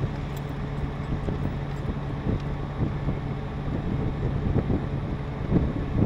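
Wrecker's engine running steadily as it drives a PTO winch, reeling a pickup truck in on the winch line. There is a constant low drone with light scattered clicks, and wind on the microphone.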